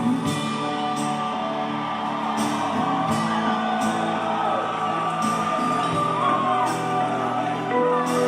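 Live rock band playing on stage with guitars, a regular beat and sung voices over it, amid the shouts of a large outdoor crowd.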